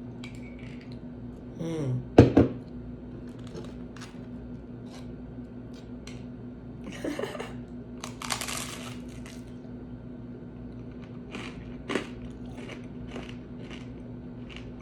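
Tableware and eating sounds: a sharp knock of a dish or utensil about two seconds in, the loudest moment, then two short scraping or crunching stretches around seven and eight seconds, with scattered small clicks of cutlery. A steady low hum runs underneath.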